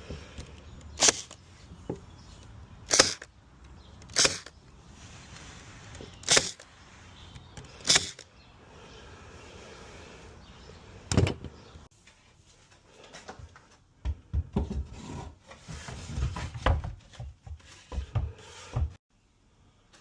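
Window trim being nailed in place: six sharp cracks a second or two apart, then a run of duller low knocks and bumps in the last few seconds.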